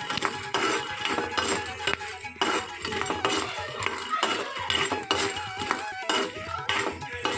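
Background instrumental music with a steady beat. Over it, a metal spatula scrapes and clinks against a metal kadai as peanuts are stirred while dry-roasting.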